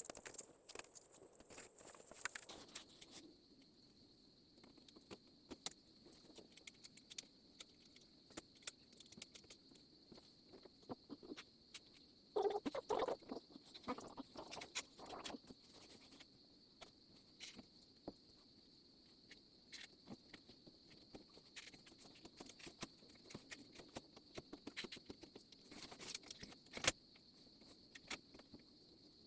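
Scattered light clicks and taps of hand work as a rubber screen spline is pressed into a door frame's channel with a spline roller tool. A louder burst of sound lasts about three seconds roughly halfway through, and a faint steady high tone runs underneath.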